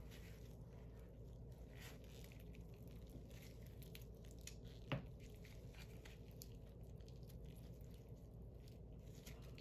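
Faint, quiet handling sounds of gloved hands working raw chicken wing meat down the bone, with one sharper click about five seconds in.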